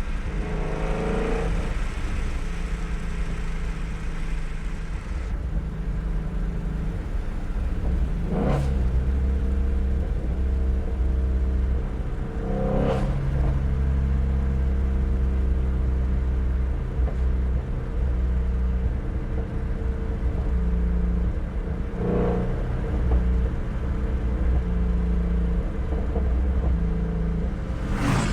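Ford Shelby GT350R's 5.2-litre flat-plane-crank V8 running at a fairly steady engine speed under light load, with four short sharp exhaust pops spread through the stretch.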